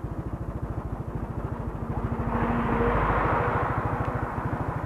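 Yamaha NMAX scooter's single-cylinder engine running while riding, a rapid, even putter, with a rush of road and wind noise that swells and fades in the middle.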